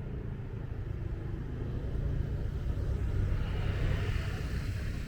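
Motorbike engine running steadily while riding, with road and wind noise. The sound swells slightly about three seconds in.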